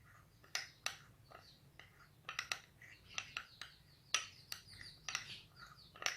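A spoon stirring milk seasoned with salt and black pepper in a small bowl or cup, clinking lightly and irregularly against the sides, about a dozen clinks over several seconds.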